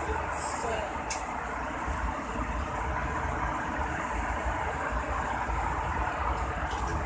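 Steady rumble and rush of airliner cabin noise at cruising altitude, with a brief high hiss and a faint click about a second in.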